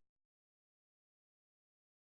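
Silence: the audio cuts off at the start and nothing is heard.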